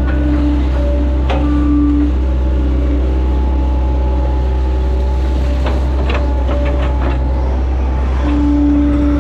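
Hitachi Zaxis 110 excavator's diesel engine running steadily, heard from the operator's cab, with a hydraulic whine that swells in short spells as the boom swings and the bucket is lowered. A few sharp clanks and rattles come a little past the middle.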